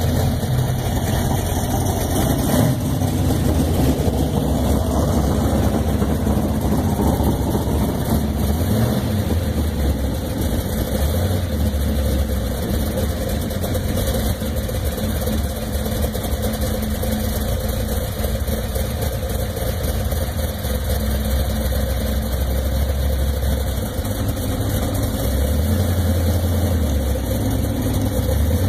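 1970 Dodge Coronet R/T's 440 big-block V8 idling steadily.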